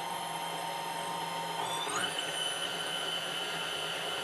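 KitchenAid tilt-head stand mixer motor running steadily with a whine, just switched on and stirring dry flour in the bowl. Its pitch rises about two seconds in as the speed goes up, then holds.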